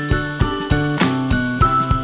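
Background music with a steady beat of about three strokes a second under held notes and bright, ringing high tones.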